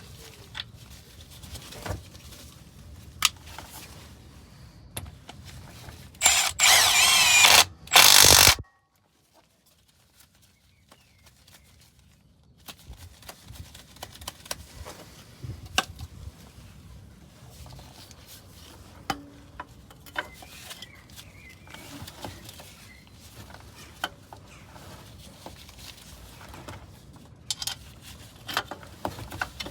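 A power tool runs in two short bursts about six seconds in, while the new pulley and tensioner are bolted onto the Renault Master's G9T engine. Around it are scattered light clicks, knocks and clinks of hand tools and metal parts.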